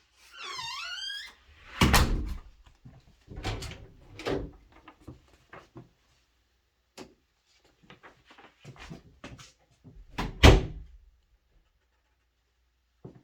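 A door squeaks on its hinges in the first second, then several heavy thuds follow: one about two seconds in, a pair around four seconds, and the loudest near ten and a half seconds. Small knocks and handling noises fall between them.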